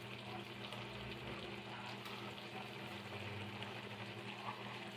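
Peppers, onions and marinated mushrooms cooking in a skillet on the stove, a steady low sizzle and bubble, over a steady low hum.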